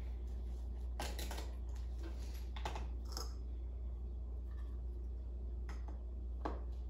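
Scattered light clicks and taps, about six in all, as the metal beaters are released from a hand mixer and handled, over a steady low hum.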